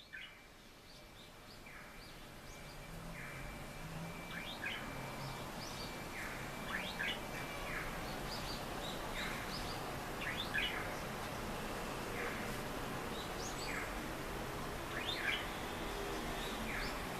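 Budgerigar giving short falling chirps, often in pairs, about every second and a half: its imitation of a pedestrian crossing signal's chirping tone.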